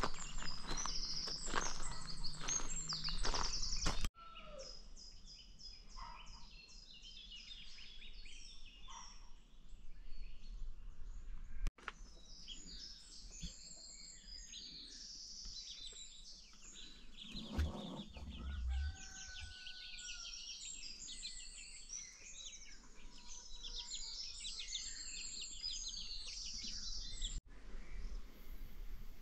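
Free-range chickens calling amid a dense chorus of short, high chirps and twitters from birds. The first four seconds are taken up by loud, rapid rustling before the chirping takes over.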